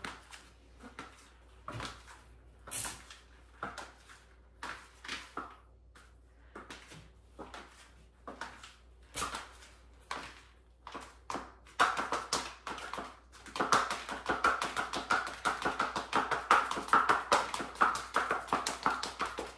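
Stiletto high heels clicking on a tiled floor in walking steps, roughly one every second or less. From about twelve seconds in, a louder, fast, dense run of small taps takes over.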